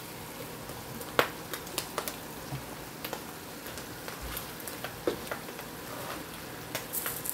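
Chicken and vegetables sizzling in a stainless steel sauté pan: a steady hiss with scattered crackling pops, the loudest about a second in. A wooden spatula stirs through the food in the second half.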